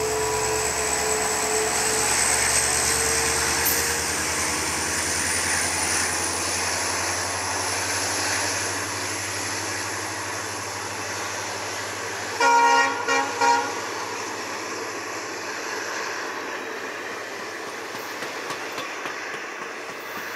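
EMD WDP4 diesel-electric locomotive's two-stroke 16-cylinder engine working hard under acceleration as the passenger train passes, its low engine note fading as the coaches roll by and away. About twelve seconds in, the locomotive's horn sounds twice in short blasts, the loudest sound.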